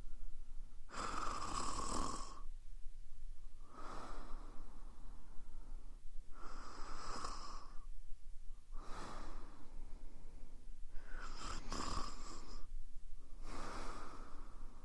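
A woman snoring in a slow, even rhythm: three breath cycles, each a louder, hissy snore followed by a softer one.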